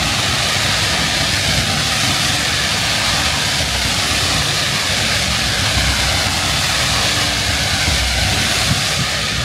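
Fireworks fountains spraying sparks upward, a loud, steady rushing hiss with no separate bangs.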